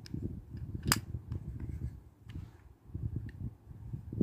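Small plastic clicks and taps as the hinged lid of a miniature plastic toy toilet is worked shut by hand, the sharpest click about a second in, over a low rubbing of fingers on the toy.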